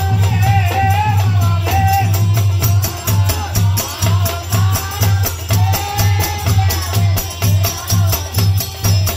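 Devi jas bhajan folk devotional music: a deep drum keeps a steady beat with jingling percussion, under a wavering melody line. About three seconds in, the drum beat stands out as an even pulse.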